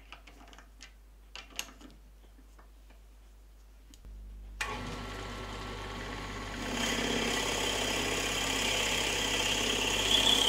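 A few small clicks as a Forstner bit is fitted and a keyed drill chuck is tightened. About four seconds in, the wood lathe starts and runs steadily. From about seven seconds the Forstner bit in the tailstock chuck bores into the spinning oak block, and the high cutting noise grows louder toward the end.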